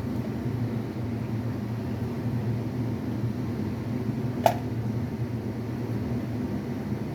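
Steady low mechanical hum, with one sharp click about four and a half seconds in.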